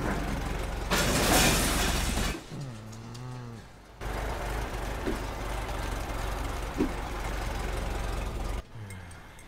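Sound effects for a flying machine: a loud rushing burst about a second in, a short pitched sound that dips and rises, then a steady engine-like rumble with two light clicks, and a falling pitched sound near the end.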